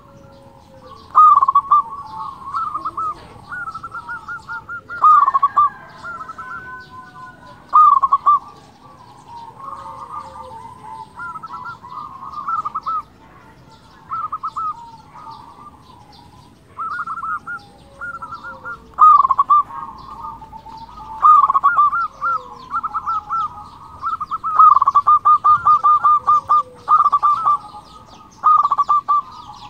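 Zebra dove (perkutut) cooing in repeated phrases of quick, rolling coo notes every few seconds, the longest and loudest runs near the end.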